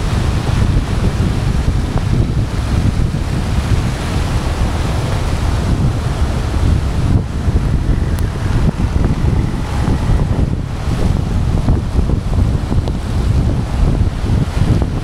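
Wind buffeting an action camera's microphone while riding through heavy rain: a steady, rumbling rush with a hiss over it.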